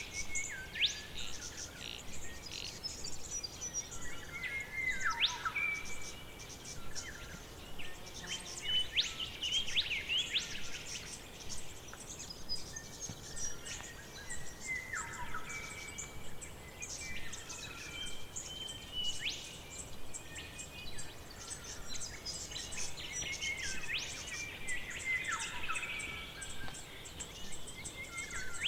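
Forest birdsong: several birds chirping and singing over one another, with a falling whistled phrase about every ten seconds.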